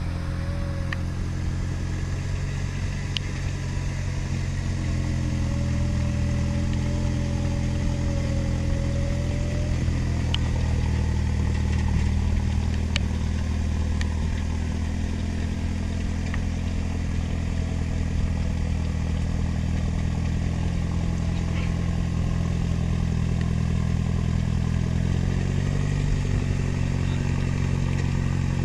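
Six-wheeled off-road truck's engine running at low, steady revs as it crawls through mud, the revs rising slightly near the end.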